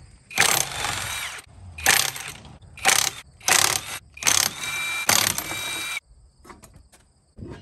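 Cordless half-inch impact wrench with a three-quarter-inch socket hammering the lug nuts loose on a travel trailer wheel, about six short bursts, one after another. It cuts off suddenly near the end, leaving a few faint clicks.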